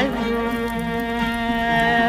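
Instrumental interlude of Turkish art music (Türk Sanat Müziği): a bowed string melody of held notes with vibrato over accompaniment.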